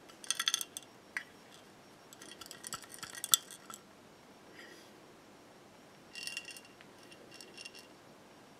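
Small pieces of burnt debris sliding and clinking against the inside of a glass jar as it is tilted. The clinking comes in three or four short bursts, with one sharper clink a little over three seconds in.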